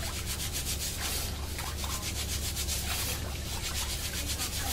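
Raw rice being washed by hand in water in a stainless steel bowl: the grains are rubbed lightly against each other in rapid, even strokes, a gritty rustling scrub. This is the polishing stage of rice washing, done without force so the grains rub off their bran without cracking.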